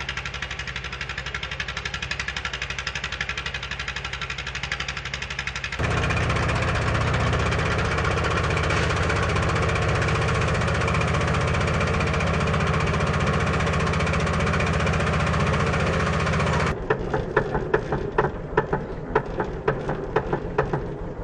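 An engine running steadily, growing louder about six seconds in as a pump engine drives a fire hose spraying water; about seventeen seconds in it gives way to a run of sharp ratcheting clicks from a hose reel being worked.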